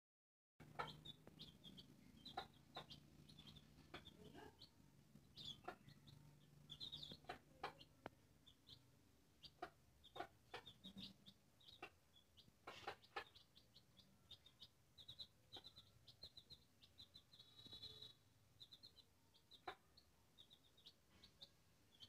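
Young chicks cheeping faintly in quick, high, repeated peeps, mixed with sharp ticks of beaks pecking grain off a concrete floor.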